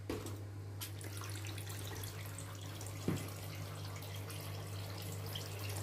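Battery-powered toy sink's pump tap trickling a thin stream of water into a filled plastic basin, over a steady low hum. The flow is weak, the battery apparently running low. A brief knock about three seconds in.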